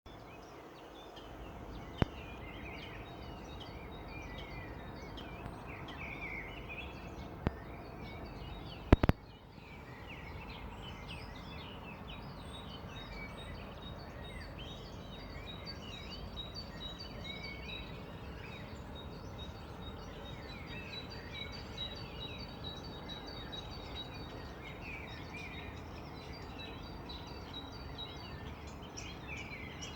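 Many small birds chirping and twittering over a steady outdoor background hiss. A few sharp clicks break through, the loudest a double click about nine seconds in.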